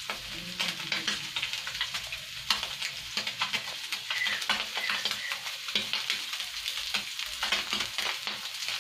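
Oil sizzling and crackling steadily around a panful of small whole puti fish deep-frying, with constant tiny pops.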